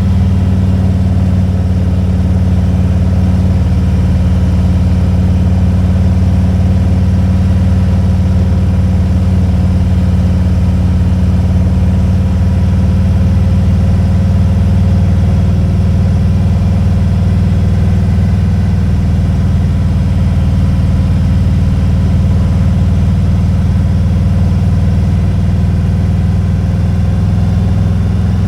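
Motorcycle engine running during a ride, a loud, steady low drone with little change in speed.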